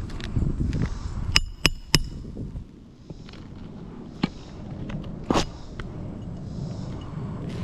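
Three quick, sharp metallic taps that ring briefly, about a quarter second apart, then two more knocks a few seconds later, with a low rumble underneath.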